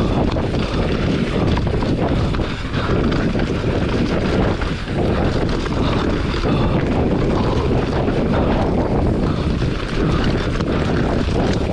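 Enduro motorcycle ridden hard over rough off-road ground: the engine runs under load, wind buffets the microphone, and many short knocks come from the bumps.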